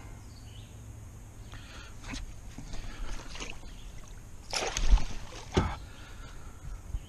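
Northern pike thrashing in a landing net at the water's surface: a run of splashes and sloshes with a few knocks, the loudest about two-thirds of the way through as the net is worked and lifted.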